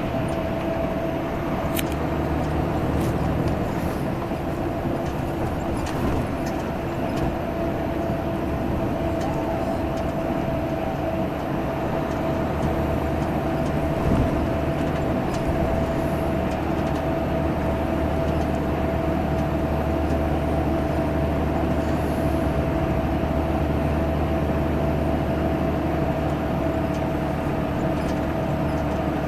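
Diesel engine of Viação Salutaris bus 13500 running steadily at highway cruising speed, a constant drone whose pitch hardly changes.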